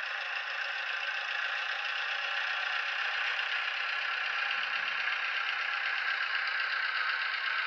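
Simulated diesel engine sound of an O gauge model Fowler diesel shunter, running steadily as the locomotive shunts slowly along the track. The sound is thin, with little bass.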